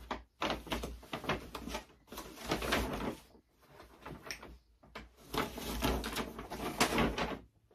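Rustling and handling noise as bags and clothing are rummaged through, in two spells: one in the first three seconds and another starting about five seconds in.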